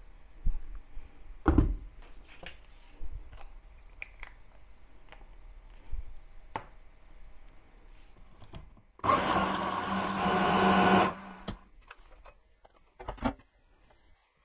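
Hand blender with a chopper-bowl attachment, running for about two seconds about nine seconds in with a steady hum, mixing minced turkey breast with the mustard just added. A few clicks and knocks of the bowl and blender being handled come before it, and one more comes near the end.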